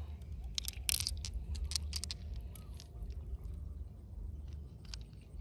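Scattered light clicks of glass marbles and small stones knocking together in a hand, over a low steady rumble.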